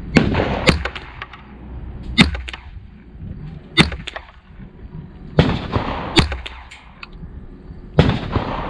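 Gunshots on an outdoor shooting range: about seven sharp shots at irregular intervals, some much louder than others, each with a short echo.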